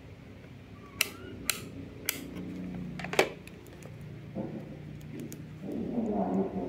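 Four sharp clicks and taps in the first few seconds as a pocket digital multimeter and its test probes are handled and set down, over a steady low hum. Near the end a low, pitched, wordless sound comes in.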